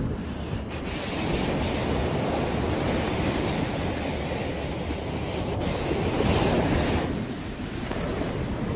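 Surf washing onto a sandy beach, with wind buffeting the microphone. The wash swells louder about six seconds in and eases off a second later.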